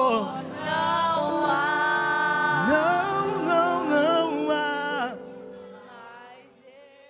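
Live worship-band singing: voices, a woman's among them, hold long notes with vibrato over a sustained chord, with no drums playing. The song ends about five seconds in and a soft tail fades away.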